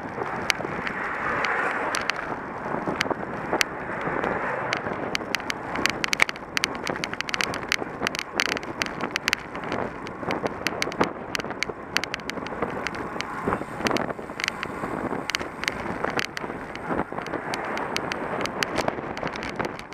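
Road bicycle riding at speed: wind rushing over the bike-mounted camera's microphone with tyre and road noise, broken by frequent irregular clicks and knocks over cracked asphalt.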